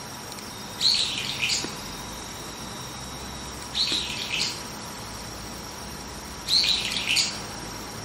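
Brown-eared bulbul calling from a perch: three high-pitched calls about three seconds apart, each lasting under a second.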